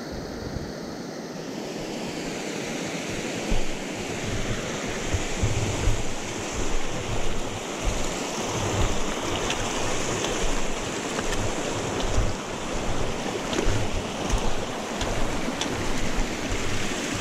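Snowmelt stream rushing and splashing down a rocky channel, growing louder over the first few seconds as it is approached. Irregular low thumps of wind buffeting the microphone run underneath.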